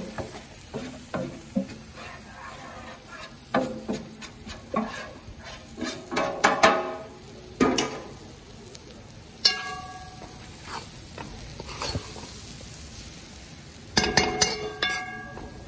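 Metal spoon and steel pan scraping and clanking against a cast-iron pot as crumbly ground dal is tipped in and stirred, some clanks ringing briefly, with a faint sizzle of the dal frying in hot oil. The busiest run of scraping and knocking comes near the end.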